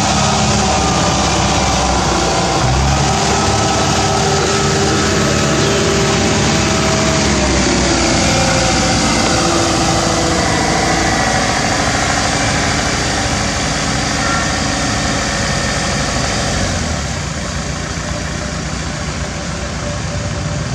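Engines of heavy road-building machines, a road roller among them, running steadily. One tone slides down in pitch about eight to eleven seconds in.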